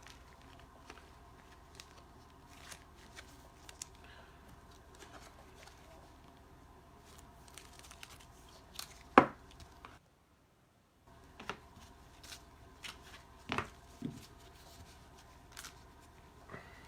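Baseball trading cards handled and flipped through: faint sliding and light tapping of card stock, with two sharper snaps about nine and thirteen seconds in.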